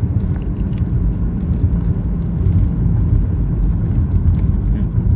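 Steady low rumble of car road noise heard from inside the cabin of a moving car.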